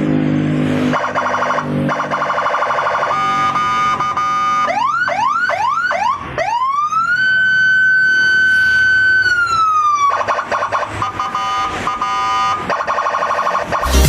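Police-escort (patwal) electronic siren by Senken cycling through its tones: fast stepped warbling, then about four quick rising whoops, a rise into one long held wail that slides down, and back to fast warbling.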